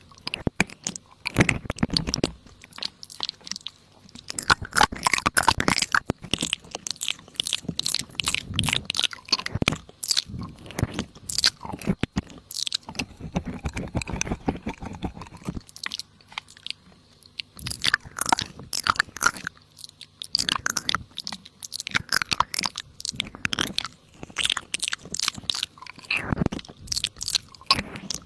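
Close-up crunching and crackling, a quick, irregular run of sharp crisp snaps with a few brief pauses.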